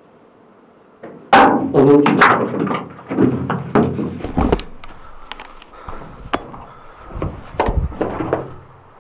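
Knocks, scuffs and heavy thuds of a person moving over a rocky cave floor: a loud burst a little over a second in, then a string of sharp knocks and scrapes with a couple of dull thuds.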